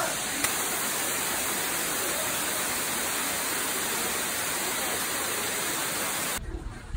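Steady rushing roar of a waterfall pouring over rocks into a pool. It cuts off abruptly near the end.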